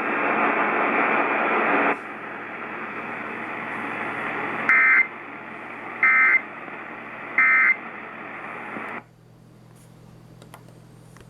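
AM radio hiss carrying an Emergency Alert System End of Message code: three short two-tone data bursts, each a fraction of a second, about a second apart, which mark the close of the alert. About nine seconds in, the hiss drops away to a faint low hum.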